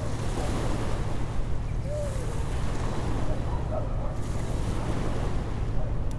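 Sea waves washing on a shore with wind, a steady rushing sound with a low rumble underneath.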